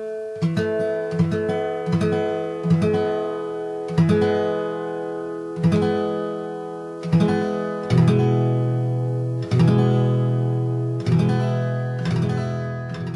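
Acoustic guitar with a capo on the second fret, its strings picked and strummed about a dozen times, each note or chord left to ring out, while the third string is tuned down a half step from G to F sharp to complete open D tuning. From about eight seconds in the strums sound fuller and lower.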